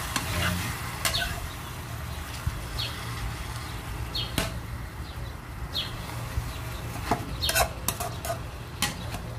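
Metal spoon scraping and knocking against an aluminium pan as chicken pieces are turned over, with short scraping squeaks and a light sizzle of the chicken browning. The knocks come more often near the end.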